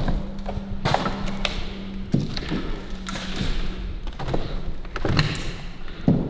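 Footsteps and dull thuds with scuffing, about five heavier thumps spread through the few seconds, over a faint steady low hum.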